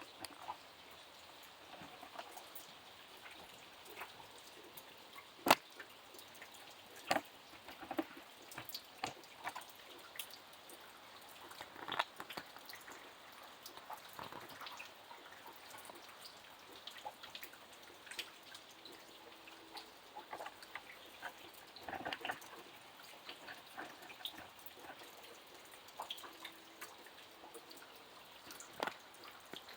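Rain dripping: scattered single drops tick and plop irregularly onto a surface over a faint steady hiss, with one louder drop about five and a half seconds in.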